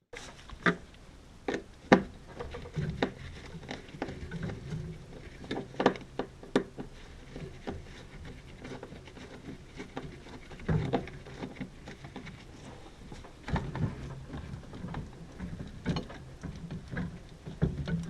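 Irregular clicks, taps and knocks of hands working with tools and parts, a few of them sharper, over a low rumble that comes and goes.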